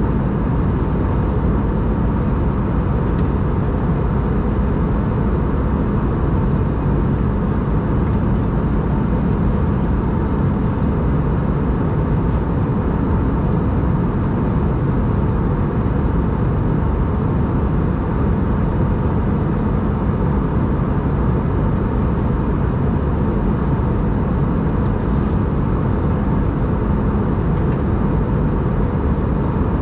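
Steady cabin noise of an Airbus A320 airliner at cruise: an even rush of engine and airflow noise with a faint hum underneath.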